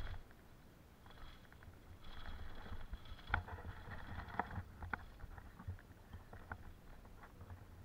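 Bicycle rolling over a road of perforated concrete paving slabs: a low rumble with scattered sharp clicks and rattles as the bike jolts over the slabs.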